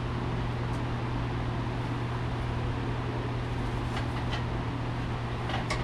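Forge running with a steady low hum and rush of air. A few faint light clicks come about four seconds in and again near the end.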